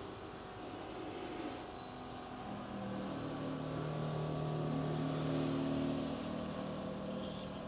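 A low, steady engine hum that comes in a couple of seconds in, grows louder, and eases off slightly near the end, with a few faint high chirps over it.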